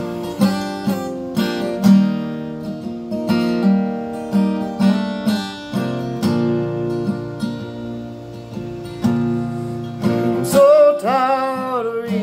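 Guitar strummed in a steady rhythm of chords, an instrumental break between sung lines. Near the end a man's voice comes in with one long sung note that slides up and wavers.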